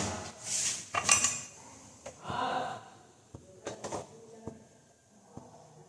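Kitchen dishes and utensils handled and clattering: a few scrapes and rustles in the first three seconds, then a string of separate sharp clinks and knocks.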